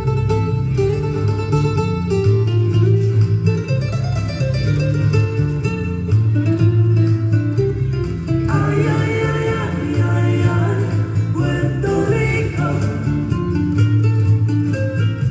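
Recorded dance music with plucked guitar over a steady, rhythmic bass line; a singing voice comes in about halfway through.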